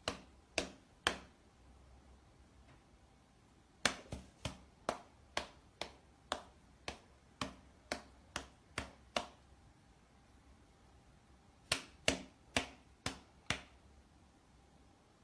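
A run of sharp taps or clicks in three groups: three about half a second apart, then about a dozen at roughly two a second, then a few more about two seconds later.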